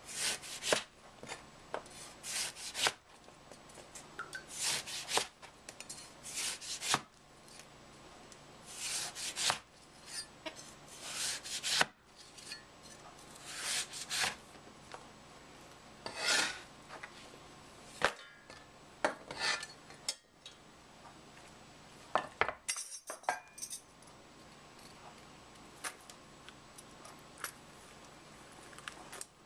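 Cleaver slicing an orange into thin rounds, each stroke cutting through and tapping down on a plastic cutting board, one stroke every second or two at an uneven pace.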